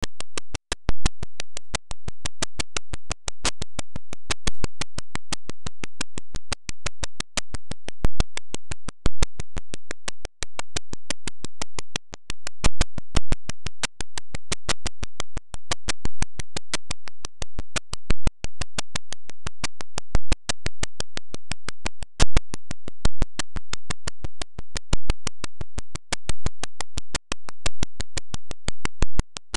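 A steady, rapid electronic pulsing: evenly spaced clicks at about six a second, unbroken throughout, with the sound of a synthesizer.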